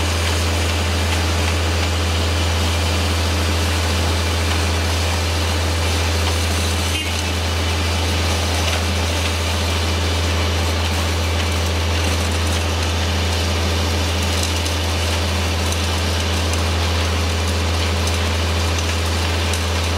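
Concrete pump truck's diesel engine running steadily with a low drone, dipping briefly about seven seconds in.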